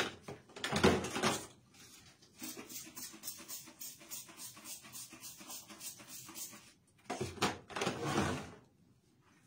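Hand scrubbing in a small tiled bathroom: a rapid run of back-and-forth strokes, about five or six a second, between two louder, longer rubbing passes, one about a second in and one near the end.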